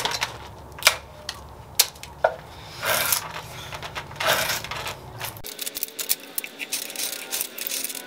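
Light metallic clinks and taps in a workshop, a few separate strikes with two short scraping sounds over a low steady hum; about five and a half seconds in the hum stops and a quicker run of small clicks follows.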